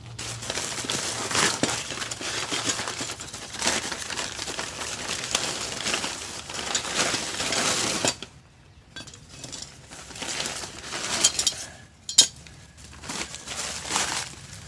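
A plastic mailer bag crinkling and rustling as it is opened and rummaged through. About halfway it quietens to a few clinks and knocks as metal recovery hooks are pulled out and handled, with one sharp clink. Near the end there is more crinkling as the bag is crumpled.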